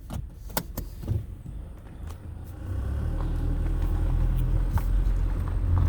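Car engine and road noise: a steady low rumble that grows louder about three seconds in and holds, after a few light clicks in the first second.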